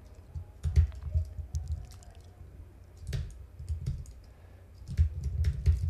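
Computer keyboard keystrokes in short irregular clusters with pauses between, as code is typed and edited in a text editor.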